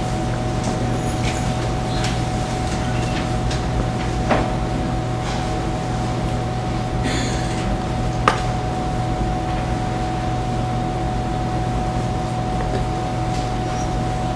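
Steady electrical hum and hiss of a lecture hall's room tone. A few faint clicks and knocks stand out, the sharpest about eight seconds in.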